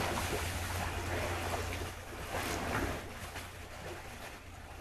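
Pool water splashing and sloshing as two people wade and lunge about in an above-ground pool, over a steady low rumble of wind on the microphone; it grows quieter in the second half.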